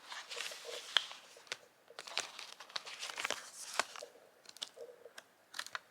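Plastic CD and DVD cases being handled: scattered clicks, taps and scrapes, with some crinkling of plastic.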